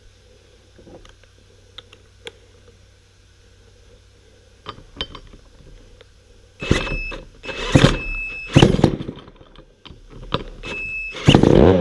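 Starter cord of a vintage McCulloch Super 550 two-stroke chainsaw pulled several times, starting a few seconds in, with a high squeal during the pulls. Near the end the engine fires briefly on a shot of starting fluid, with the carburetor removed, showing the cleaned points now give spark.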